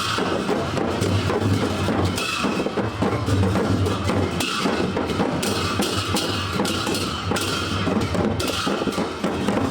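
Live festival drumming: a group of traditional drums played in a steady, busy rhythm of dense strikes with deep thuds underneath.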